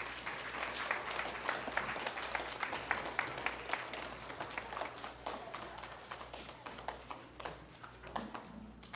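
Audience applauding, many hands clapping at once, thinning out and fading after about six seconds.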